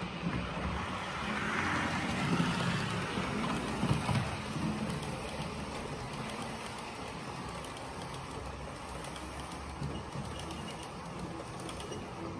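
Roco model electric train running along the track: a steady rush and rumble of small wheels on rails with a low motor hum. It is loudest for the first few seconds as the coaches pass nearest, then settles to an even running sound.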